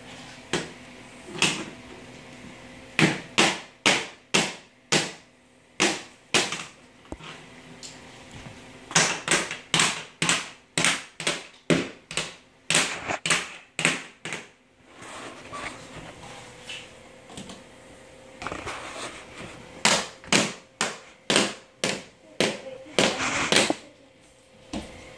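A baby banging on a hardwood floor: three bursts of loud, sharp knocks, about two a second, with short pauses between them.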